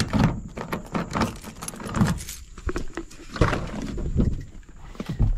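Keys jangling with a run of sharp clicks and knocks as the driver's door handle and latch of a 1997 Ford F-150 pickup are worked and the door is swung open.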